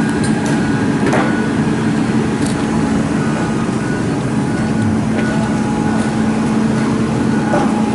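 A crane's diesel engine running steadily at a constant pitch while it lifts a track piece, with a few faint knocks.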